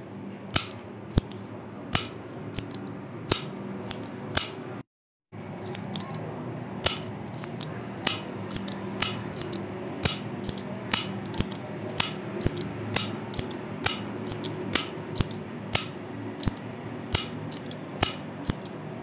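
Retractable pen's push button clicked over and over: sharp clicks at an uneven pace, about two a second, some in quick pairs, over a steady low hum. The sound cuts out briefly about five seconds in.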